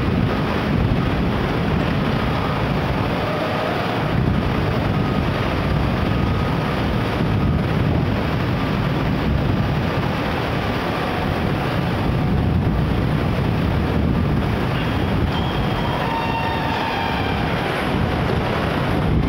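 Steady wind noise on the microphone with a low rumble underneath. Faint short high tones come in near the end.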